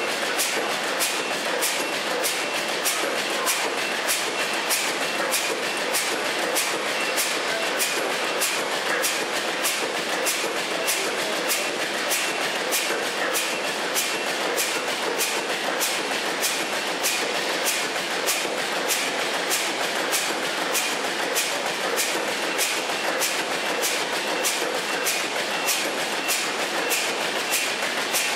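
Machinery running steadily, with a regular sharp click about twice a second over a continuous noise.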